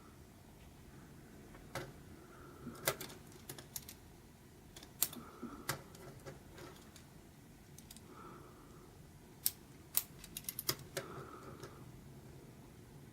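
Irregular sharp clicks and taps of hard plastic LEGO Technic pieces being handled and fitted together, some single and some in quick clusters.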